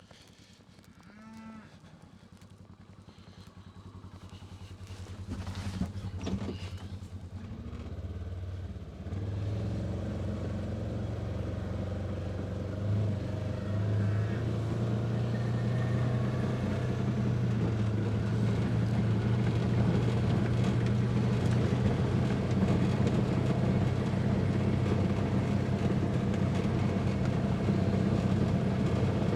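A vehicle engine comes in and grows louder over the first several seconds, then runs steadily as the vehicle drives.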